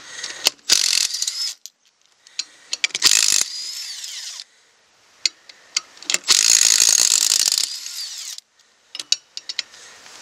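Milwaukee 18V cordless impact driver with an extension and socket, run in about three bursts of hammering to spin the lug nuts off a trailer wheel. The longest burst, about a second and a half, comes past the middle. There are short sharp clicks between the bursts.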